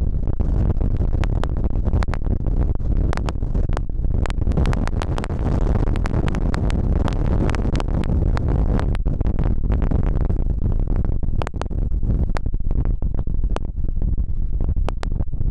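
Strong wind buffeting the camera microphone: a steady low rumble with frequent crackling pops.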